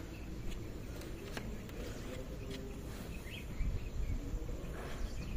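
Quiet outdoor background with a low rumble, a few faint ticks and a faint bird chirp about three seconds in.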